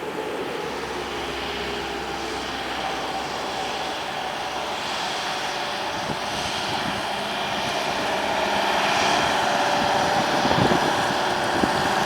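Airbus A320neo's CFM LEAP-1A turbofan engines running, a steady jet noise with a held whine near 1 kHz, growing louder over the second half.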